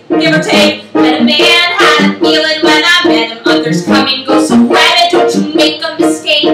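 A woman singing a musical theatre song over a rhythmically strummed plucked-string accompaniment.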